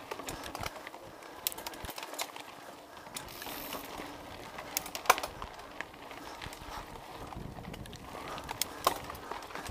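A mountain bike rattling and clicking as it rolls over a rough dirt trail, with scattered sharp knocks from the frame and drivetrain, two of them stronger about five and nine seconds in.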